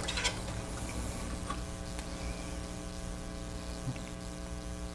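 Steady electrical mains hum, a buzz made of many evenly spaced tones, with a couple of faint light clicks partway through.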